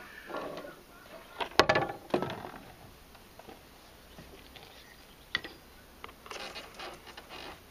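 Handling noise: a sharp knock about one and a half seconds in, a softer one just after, and a small click later, with light rustling in between.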